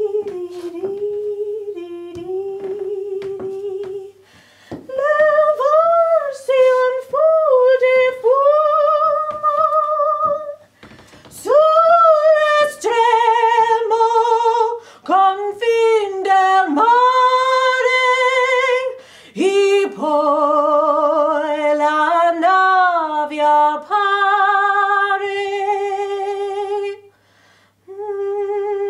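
A woman singing solo without accompaniment, in long held notes with vibrato. It starts softly and rises to full voice about five seconds in.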